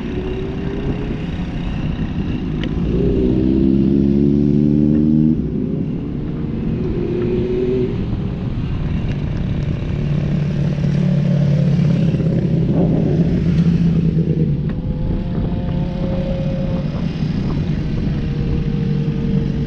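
Motorcycle engine running under way: it rises in pitch for about two seconds, drops off suddenly about five seconds in, then holds a steady pitch through most of the rest, over a constant low rumble.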